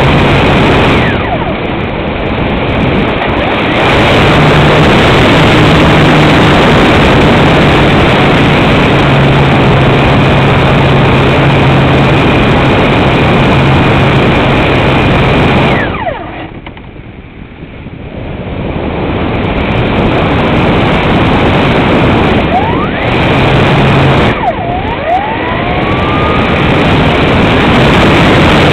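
Wind rushing over the microphone of an onboard camera on a propeller-driven RC glider in flight, mixed with a low hum from the spinning propeller that comes and goes. The rush drops away for a couple of seconds past the middle, then builds again.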